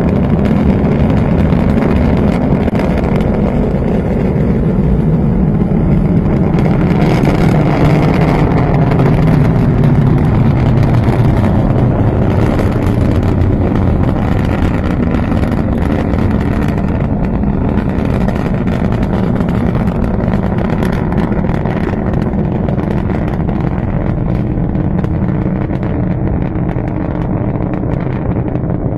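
Rocket engines during liftoff and climb, heard from a distance as a continuous low rumble. It is brightest about a third of the way in and eases slightly as the rocket climbs away.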